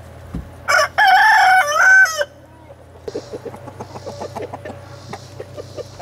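A rooster crows once, loudly, for about a second and a half, the call dropping at its end. After it come quieter scattered clucks and pecking ticks from hens feeding on tomato scraps.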